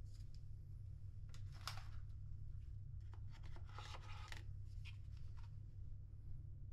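Hands handling small paper-wrapped toiletry packets and plastic items: several short rustles and scrapes, the clearest about one and a half seconds in and around four seconds in, over a steady low hum.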